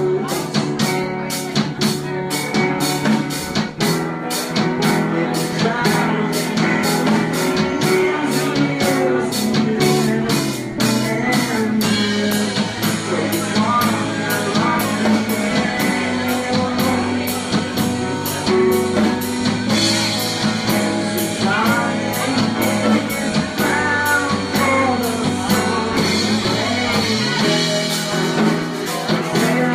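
Live rock band playing: a drum kit keeps a steady beat under guitar and bass, with a voice singing. Cymbals wash in about twelve seconds in.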